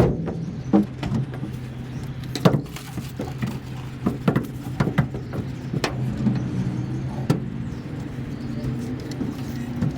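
Scattered light clicks and taps of a spline roller and screen spline being worked into a screen door frame's groove, over a steady low hum.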